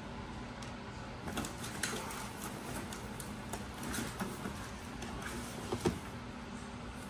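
Patient-lift parts being handled in and out of cardboard boxes: plastic wrapping rustling and cardboard scraping, with a few light knocks, the sharpest a little before the end, over steady room noise.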